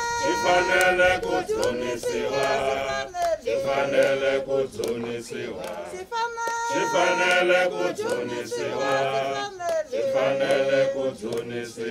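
A group of people singing together without instruments, in the manner of a hymn. Sustained sung lines break off briefly every few seconds.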